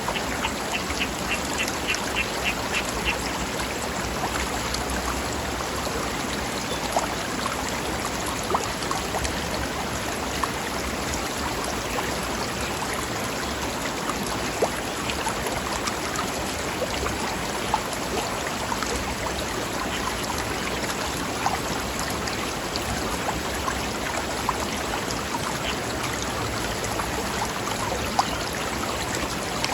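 Forest river running steadily over rocks: an even rushing with small splashes. In the first three seconds a bird gives a rapid string of about ten short, high calls, roughly three a second.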